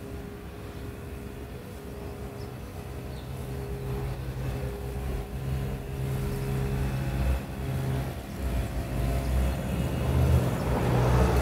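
A motor engine running with a steady hum, growing louder over the second half.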